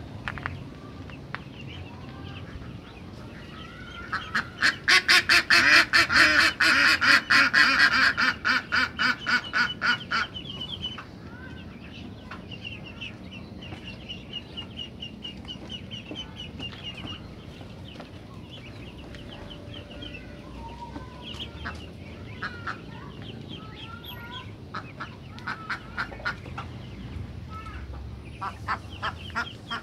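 Chickens and ducks calling. About four seconds in comes a loud, fast run of repeated calls lasting some six seconds. After that there are quieter chirps and short rising peeps, and another run of calls near the end.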